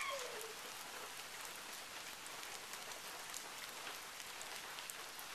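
Steady rain: an even hiss with individual drops ticking. A young child's short high call rises and falls in the first half second.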